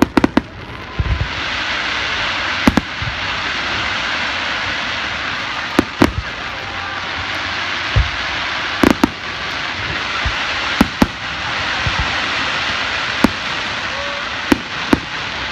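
Aerial fireworks shells bursting with sharp booms, more than a dozen at uneven intervals, over a steady rushing hiss that sets in about a second in.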